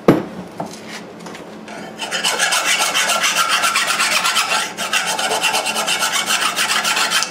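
An angle grinder is set down on the wooden bench with a sharp knock. About two seconds in, a hand file starts rasping along the freshly ground edge of the steel lawn mower blade in the vise, in many quick, even strokes.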